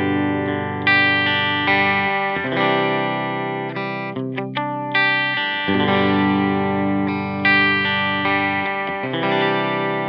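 Fender Custom Shop 1956 Stratocaster played clean through an Echoplex EP-3 tape echo: strummed chords that ring out and fade, a new chord about every second, with a few quick muted strums about four seconds in.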